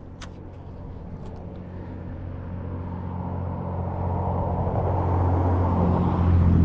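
A motor vehicle approaching, its engine hum and road noise growing steadily louder and peaking near the end.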